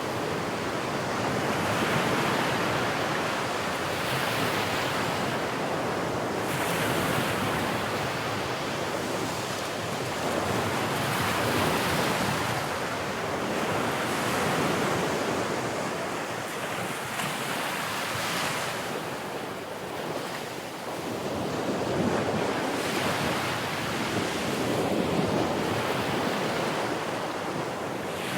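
Sea waves breaking and washing ashore, swelling and easing every few seconds, with wind noise on the microphone.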